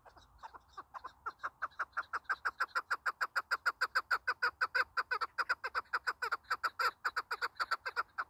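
Chukar partridge giving its rapid chuck call series: short calls that start slow and sparse, speed up to about six or seven a second and grow loud, then thin out near the end.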